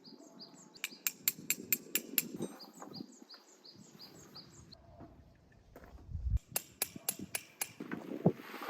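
Two quick runs of sharp knocks, about six or seven strikes each at several a second, the first about a second in and the second near the end. Between them a high chirp repeats several times a second.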